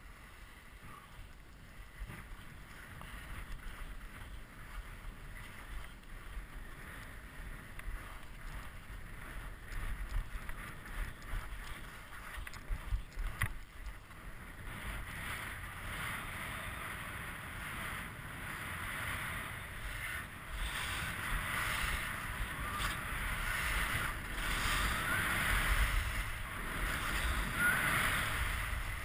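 Skis hissing and scraping over snow through turns, with wind rumbling on the microphone. The sliding noise gets louder from about halfway through.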